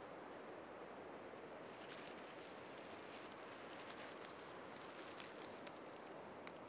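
Steady wind through the treetops, with a run of faint, irregular small crackles and ticks starting about a second and a half in.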